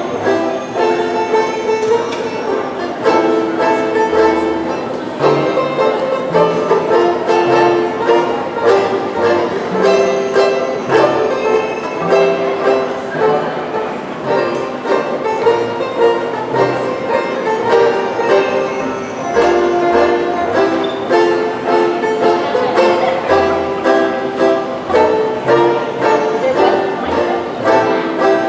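Instrumental music: quick, evenly paced plucked-string notes over a moving bass line.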